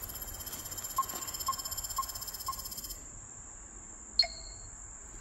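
A steady, pulsing high chorus of insects, with four short electronic beeps half a second apart; the insect sound drops out about three seconds in, and a sharp click with a brief ringing beep follows a second later, as a handheld digital measuring device finishes a measurement.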